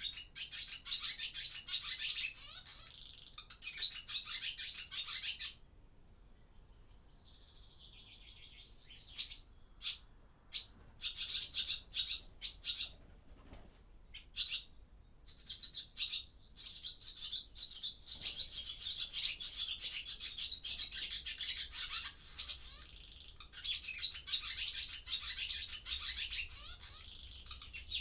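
Barn swallows twittering in a long, fast run of chirps, warbles and buzzy notes. The twittering breaks off about five seconds in, a fainter buzzy phrase follows, and the full twittering returns about ten seconds in.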